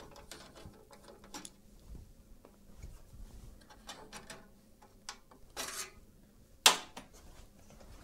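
Screwdriver backing out the screw of a steel PCI expansion-slot cover in a PC case, then the cover being lifted out: a run of small metallic clicks and ticks, a short scrape about five and a half seconds in, and one sharp metal click near the end.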